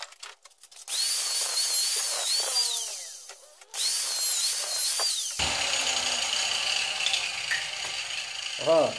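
Angle grinder with a cut-off disc cutting into an old tapered roller bearing clamped in a steel vise. It makes two cuts of about two seconds each, the high whine wavering under load and dropping in pitch between them. The bearing is being cut apart to leave its inner race.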